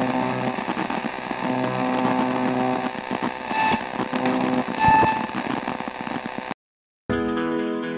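Sci-fi electronic sound effect: a steady hum with hiss and held tones, with two short beeps past the middle, about a second apart. It cuts off abruptly; after a brief gap, guitar music starts near the end.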